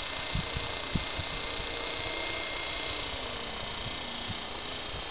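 Electric Belt CP radio-controlled helicopter hovering: a steady high-pitched whine from its motor, gears and rotor, sagging slightly in pitch near the end, over scattered low thumps.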